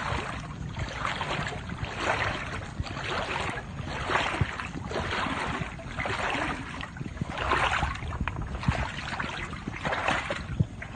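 Floodwater sloshing in a steady rhythm of about one swish a second, from someone moving through the water.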